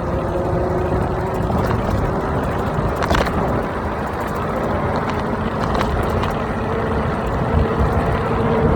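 Wind rushing over the microphone of a moving iENYRID M4 Pro S+ electric scooter, a steady low rumble. Under it is a faint whine from the scooter's 800 W motor that steps up in pitch near the end. There is one sharp click about three seconds in.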